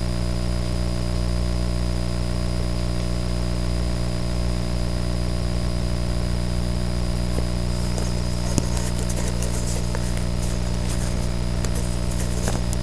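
A steady mechanical hum made of several fixed tones. From about eight seconds in, it is joined by scattered clicks and rattles as the drone and its camera are picked up and handled.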